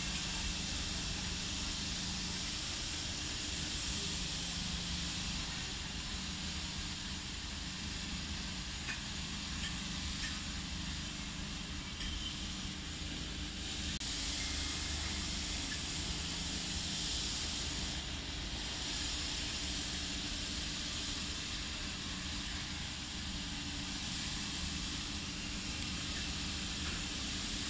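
Steady background hiss with a low hum underneath, unchanging throughout, with no distinct events.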